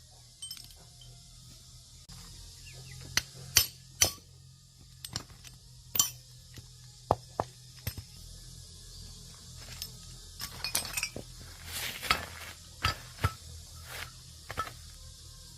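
Metal tools and parts clinking and tapping irregularly as a machine is taken apart by hand. The strikes come scattered and single, with the loudest pair about four seconds in and a busier run of knocks around ten to thirteen seconds in.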